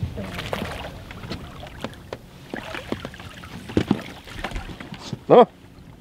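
Water splashing with irregular knocks as a hooked fish is guided into a landing net at the side of a boat. A brief loud vocal exclamation comes about five seconds in.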